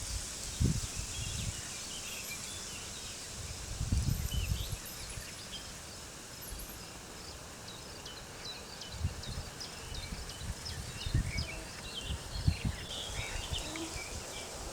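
Small birds chirping and singing over a steady windy hiss, with gusts of wind rumbling on the microphone now and then.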